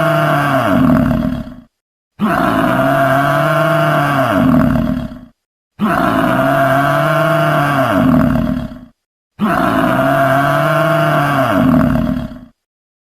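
A low animal call lasting about three seconds, repeated identically four times with short silent gaps between: a looped recording of one call.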